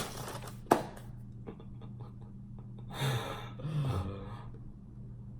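A person's two breathy sighs, each with a low falling voice in it, about three and four seconds in, after a single sharp click a little under a second in; a steady low electrical hum runs underneath.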